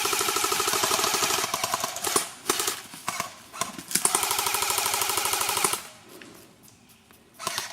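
Automatic airsoft rifle firing full-auto: two long bursts of about two seconds each, rapid even clicks over a gearbox whine, with a few short bursts between.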